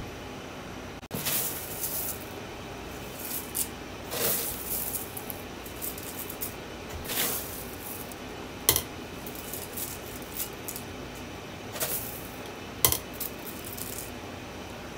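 Cornflakes being dropped by hand into a glass bowl: irregular dry, crackly rustles with a couple of sharp clicks, over a steady background hiss.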